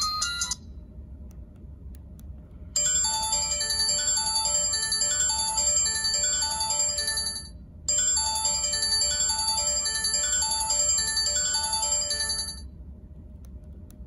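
Sony Ericsson Spiro ringtone: a short melody of high notes played through twice, each pass about five seconds long with a brief break between. Another tune ends just at the start.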